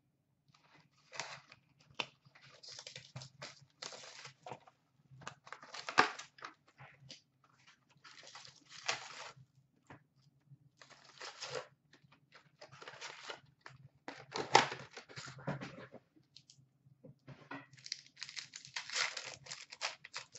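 Cardboard hockey card hobby box torn open and its card packs handled, a run of irregular tearing and crinkling with a few sharper snaps.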